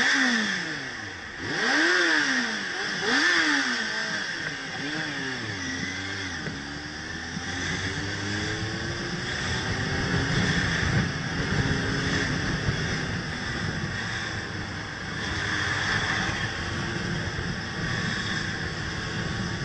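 Sport motorcycle engine revving in short blips while filtering through slow traffic: its pitch rises and falls several times in the first few seconds. It then runs more steadily at low speed over a constant rush of road noise.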